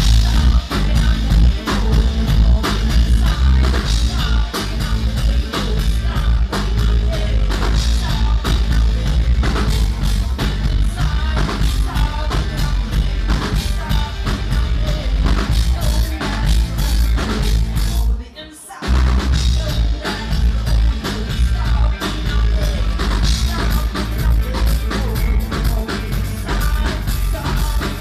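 Live rock band playing: electric guitar, drum kit and bass, with a woman singing. The music drops out briefly about two-thirds of the way through, then comes straight back in.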